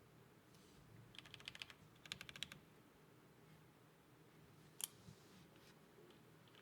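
Typing on a MatrixLab 8XV3 mechanical keyboard with lubed Cherry MX Black linear switches, an aluminium half plate and GMK keycaps. Two quick runs of keystrokes come about a second apart, then a single sharp keystroke later on.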